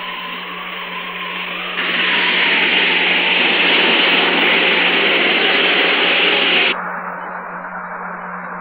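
Animated sound effect of hover craft speeding over snow: a steady rushing engine noise with a low hum under it. It swells much louder about two seconds in and drops back abruptly near the end to a quieter steady drone.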